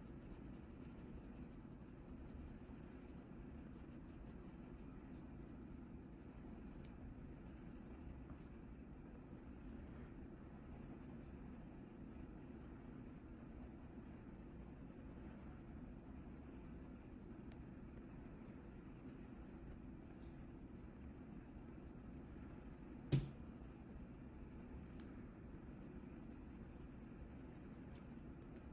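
Faint scratching of a Faber-Castell Polychromos colored pencil shading on a coloring-book page in short, irregular strokes, over a steady low hum of room tone. A single sharp click sounds once, late on.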